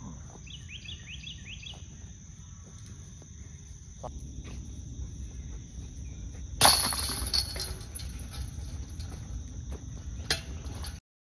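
A putter disc, the pink Discraft Luna, strikes the chains of a metal disc golf basket about two-thirds of the way in, with a loud jangle of chains that rings out for about a second as the putt drops into the basket. A shorter sharp clink comes near the end. Insects drone steadily throughout.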